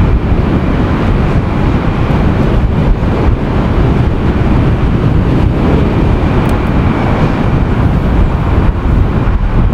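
Wind buffeting the microphone in a loud, steady low rumble, mixed with the engine noise of an Airbus A320-214's CFM56 turbofans on final approach.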